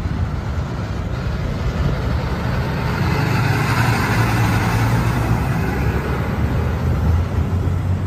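Diesel semi-truck pulling a tanker trailer driving past: engine rumble with road noise, growing louder toward the middle and staying loud.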